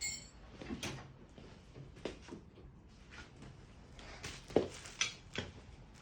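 Scattered light knocks and clicks of tools and parts being handled, with a cluster of three sharper knocks near the end.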